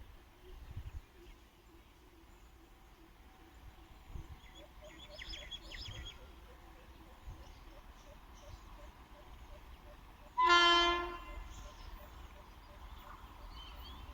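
Short horn blast from an approaching WAP7 electric locomotive, one pitched honk lasting under a second about ten seconds in. Before it, only a faint outdoor background with a few high chirps around five seconds in.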